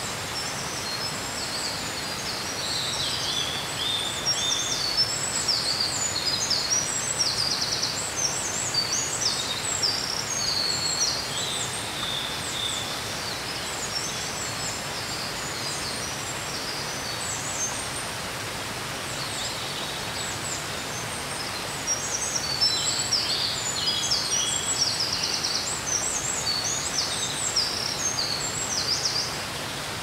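Steady rush of a waterfall of many thin streams of spring water seeping over a rock face. Over it a small bird sings fast, high twittering phrases in two long spells, the first from about a second in to near the middle, the second starting about two-thirds of the way through.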